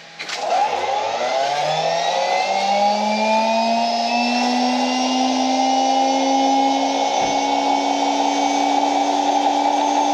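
Cordless electric pressure washer (EGO Power+ HPW3200) starting up as the gun's trigger is pulled. The motor and pump whine rises in pitch over the first two or three seconds, then runs steadily. Over it is the hiss of water spraying from the rinse nozzle, on the machine's low setting.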